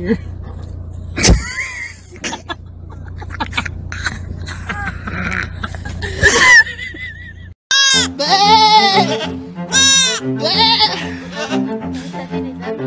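Young goat kid bleating several times in high, wavering cries over background music. Before that comes a steady low hum with a few short noises.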